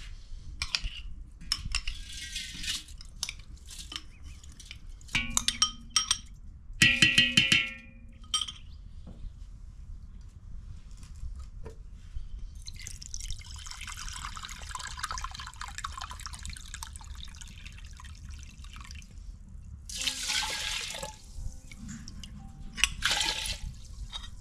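Kodo millet grains poured into a brass pot, with sharp clanks and metallic ringing from the pot in the first few seconds. Water is then poured in from a bowl in long splashing streams onto the grains.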